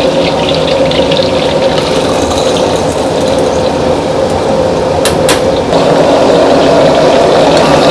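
Gas wok burner running with a steady rushing noise under a wok of simmering water with onion and green vegetables in it. A metal ladle clinks against the wok twice about five seconds in, and the rushing gets a little louder just before six seconds.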